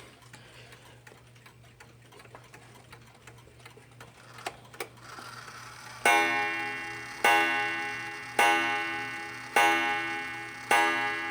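A 1929 Sessions spring-driven mechanical mantel clock ticking faintly, then, about six seconds in, striking with ringing blows about one a second, each dying away slowly.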